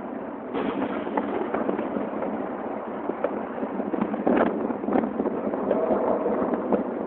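New Year's fireworks going off in quick succession, heard through a phone's narrow-band microphone: a dense crackle of small bangs that gets louder about half a second in, with sharper bangs around four and five seconds in.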